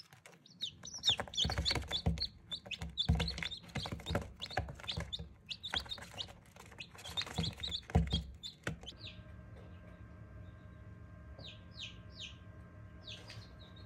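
Newly hatched chicks peeping rapidly and constantly, with rustling and knocking as they move about. About nine seconds in this gives way to the steady hum of the egg incubator's fan, with a few single peeps from a chick inside.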